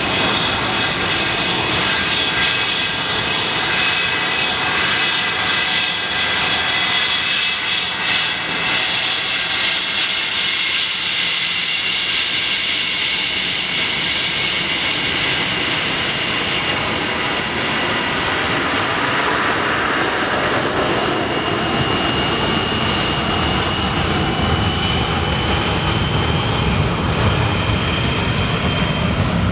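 English Electric Lightning's twin Rolls-Royce Avon turbojets running, a loud steady jet noise with a high whine that climbs slowly in pitch over the second half. A deeper rumble builds near the end.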